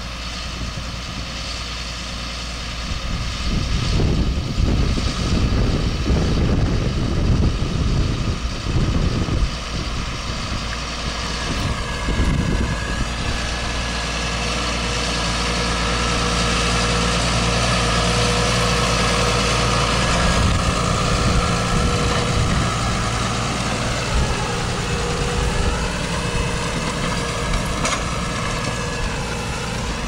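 Claas Arion 610 tractor's six-cylinder diesel engine working under load while pulling a plough, running steadily and growing louder as the tractor passes close. Irregular low rumbling surges come in the first half, and near the end the engine note dips and recovers twice.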